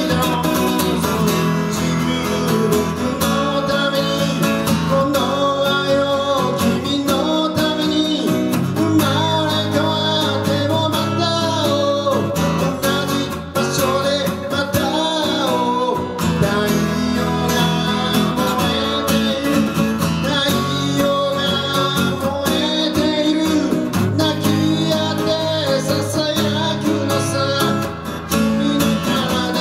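Acoustic guitar playing live in a solo performance, strummed and picked without a break, with a voice singing along in places.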